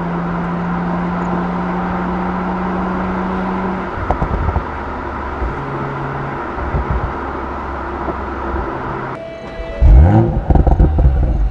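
BMW Z4 M40i's stock exhaust, on its 3.0-litre turbocharged straight-six: steady cruising drone, then low pops and burbles off throttle about four seconds in. Near the end a quick, loud rise in revs, the loudest part, with crackles after it.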